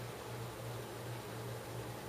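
Steady low hum under an even hiss: the background noise of the recording, with no other event.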